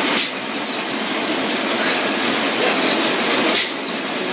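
Crossley stationary gas engine turning over as its large flywheel is swung by hand to start it, with a steady mechanical clatter. A loud sharp knock comes twice, near the start and near the end.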